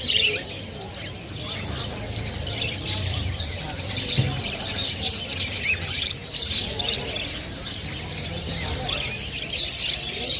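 Many caged birds chirping and squawking at once in a dense, continuous chatter, over a steady low background murmur.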